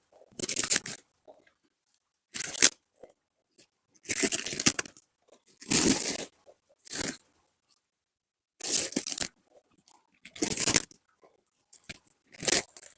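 About ten short, irregular bursts of crunching, tearing noise, with silence between them.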